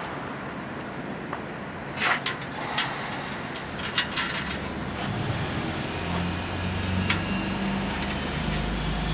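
Several sharp metal clicks and knocks from hand work on a cooling-tower fan's blade hub, then a low engine drone that comes in about halfway through and keeps on.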